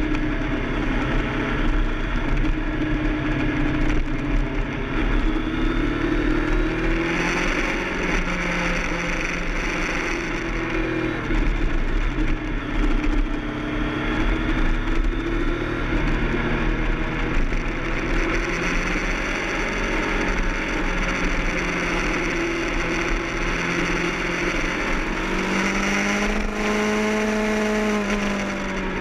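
Sport motorcycle engine running at track speed, its revs rising and falling through the corners and gear changes, with heavy wind rush on the microphone.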